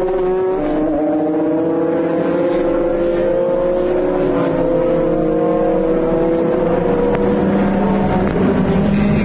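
Racing engines of a Maserati MC12 and a chasing Ferrari GT car, running hard at high revs. Their pitch slides up and down as they brake, change gear and accelerate through the corners.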